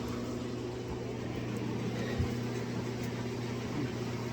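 Electric fan running with a steady hum, and a faint knock about two seconds in.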